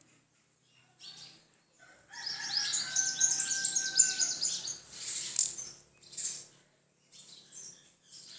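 A bird chirping in a rapid, dense run of high chirps for about four seconds, starting about two seconds in, with a held whistle-like note underneath. Short, faint scratchy rustles come before and after.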